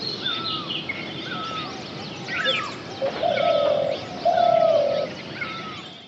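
Forest birds calling: one bird repeats a short curved whistle about once a second over scattered higher chirps, and two longer, lower cooing notes come in the second half, the loudest sounds here. The sound fades out at the end.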